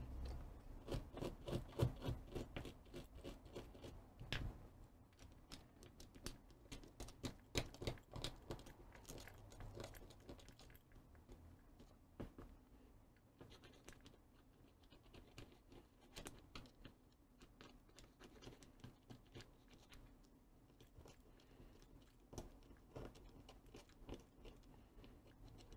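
Faint scraping and small clicks of a small screwdriver working over the metal contacts and plastic parts of an old soldering-gun trigger switch as they are cleaned. The scratches come thick and fast for the first ten seconds or so, then grow sparser.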